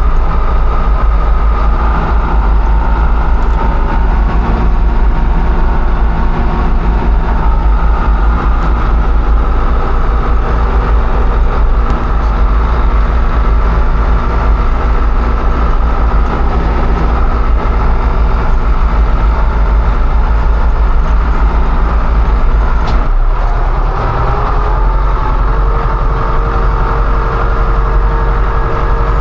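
Farm machinery engine running steadily and loudly, from either the tractor or the motorized power tiller. About 23 seconds in, the sound changes abruptly to a different engine note.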